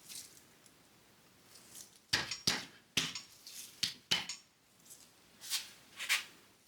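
Irregular metallic clinks and knocks, about eight of them starting some two seconds in, as the steel spindle, link pin and shims of a VW Beetle link-pin front end are worked into place.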